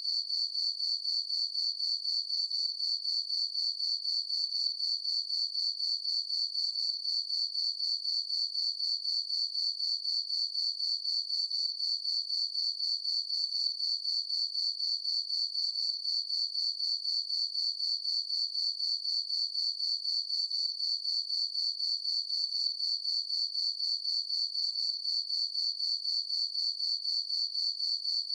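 Crickets chirping in a steady, high-pitched chorus of rapid, even pulses that never lets up.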